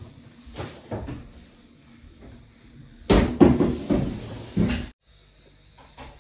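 Kitchen clatter: a couple of short knocks, then a louder run of knocking and rattling from cupboard doors and a bin lid being opened and shut. It cuts off suddenly near the end.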